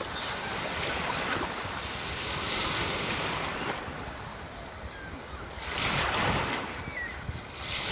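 Gentle sea waves washing onto the shore, a steady surf that swells twice as waves break.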